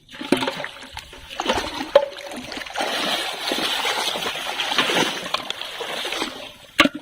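Water splashing and sloshing hard and unevenly as a big hooked catfish thrashes at the surface while it is pulled in, with a sharp slap near the end.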